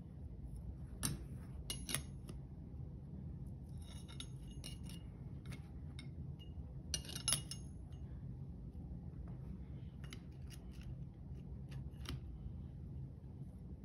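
Steel clutch plates and friction discs of an MF50A clutch pack clinking as they are handled and set down over the shaft onto the stack. The clicks are light and scattered, the loudest a little after seven seconds in, over a steady low hum.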